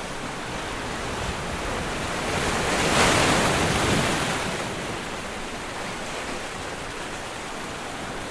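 Sea surf washing onto a beach: a steady rush of water noise that swells as a wave breaks about three seconds in, then recedes.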